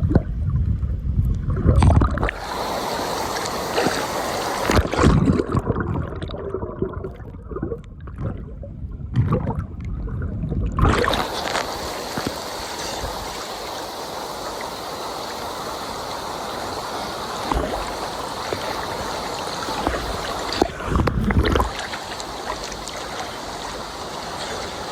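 A waterfall's steady rush of falling water, with splashing from a swimmer close by. For a few seconds around the middle the sound goes dull and muffled, as if heard from under the water.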